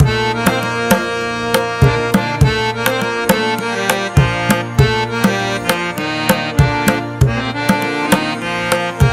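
Indian-style background music: tabla drumming in a steady rhythm over held, sustained notes.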